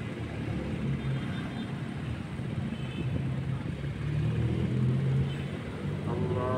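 A low, steady engine hum over general harbour noise. A higher held tone comes in near the end.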